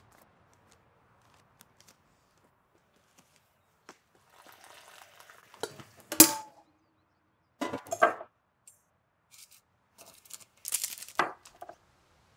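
Kitchen sounds of a kettle and ceramic mug being handled: water poured from the kettle into the mug, then a sharp ringing clink and two more short clatters of crockery a couple of seconds apart.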